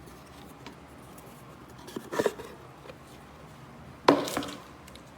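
Two short knocks or clatters, one about two seconds in and a louder one about four seconds in.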